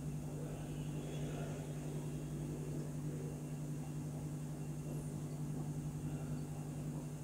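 Steady low hum with a faint, even hiss: room tone, with no distinct breath or other event standing out.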